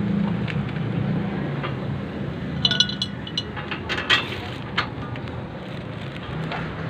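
Metal parts and tools clinking and tapping as a bolt is fitted into the suspension, a quick cluster of ringing clinks about three to five seconds in. A steady low hum runs underneath.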